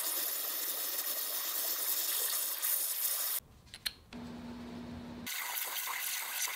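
Waterjet cutter hissing steadily as it cuts a metal plate under water. About three and a half seconds in the hiss stops for under a second, with a couple of small clicks, then a steady low hum for about a second, before the hiss resumes.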